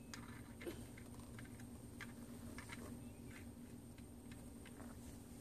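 Faint, irregular small clicks and taps of hands working a fluorescence filter cube out of its slot in a Nikon TS100 inverted microscope, over a steady low hum.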